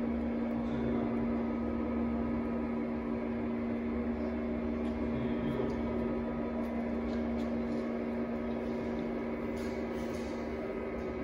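Diosna HK224 bowl lifter's drive running with a steady hum as it raises a stainless-steel mixer bowl up its column.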